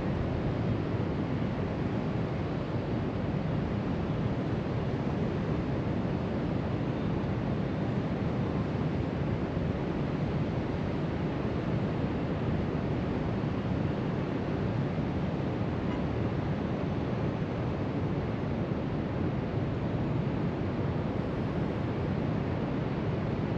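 Steady wash of ocean surf breaking along the beach, mixed with wind blowing across the microphone, with no distinct single events.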